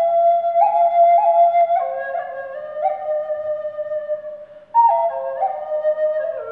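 Ash-wood Native American-style flute tuned to A-sharp minor pentatonic, playing a slow melody of held notes. A phrase steps down and breaks briefly for a breath about four and a half seconds in, then a new phrase starts high and descends.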